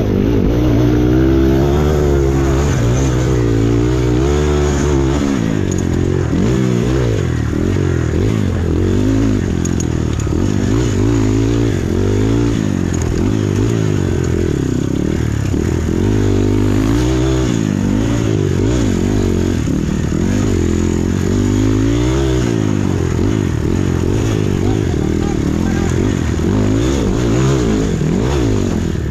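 Dirt bike engine revving hard, its pitch climbing and dropping every second or two as the throttle is opened and closed, heard close up from on the bike.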